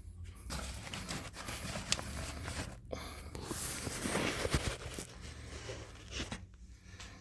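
Rustling and handling noise with a few sharp clicks.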